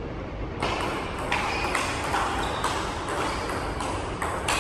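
Table tennis ball clicking off paddles and the table in a quick, irregular run of sharp taps.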